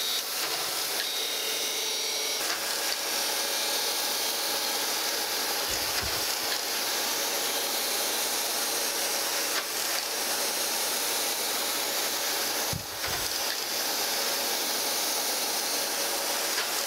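Surface grinder's abrasive wheel grinding a metal straight edge on a very light finishing pass, fed down a couple of tenths and throwing sparks: a steady grinding hiss. A low thump comes twice, about seven seconds apart.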